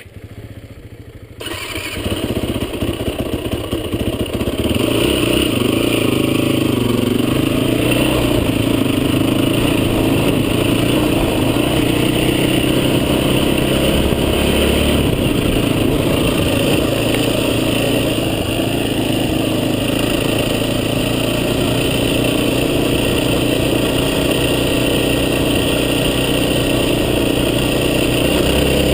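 Off-road vehicle engine running under way. The sound cuts in about a second and a half in, builds over the next few seconds, then runs steadily and loudly.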